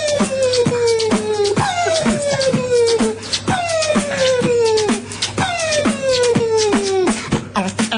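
Beatboxing: rapid mouth-made drum clicks and snares under a hummed tone that slides down in pitch, the same phrase repeating about every two seconds, four times.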